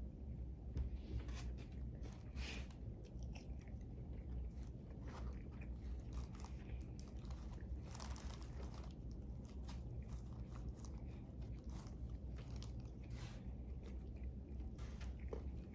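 Close-miked chewing and biting of breakfast food: irregular crunches and wet mouth clicks, over a steady low hum.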